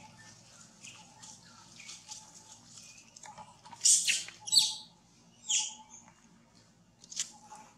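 Short, high-pitched chirping and squeaking animal calls: faint chirps throughout, and four loud, brief squeaks in the second half, about a second apart.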